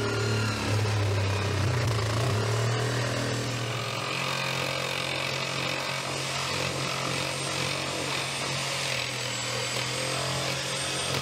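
Reciprocating saw running steadily as it cuts down through the wooden wall of the rotten, waterlogged freezer enclosure, its pitch shifting about three and a half seconds in.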